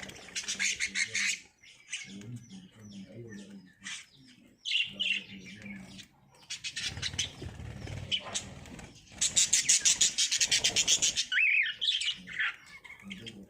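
Lovebirds chattering and squawking: rapid strings of shrill chirps, loudest in a dense run from about nine to eleven seconds in, with a short whistled note soon after.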